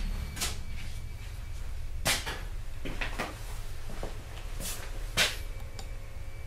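About half a dozen sharp knocks and clatters at irregular intervals, the loudest about two seconds in and again just past five seconds, over a steady low rumble.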